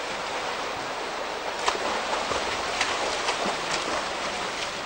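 Water splashing and churning in a swimming pool as swimmers thrash about: a steady rush with several sharper splashes.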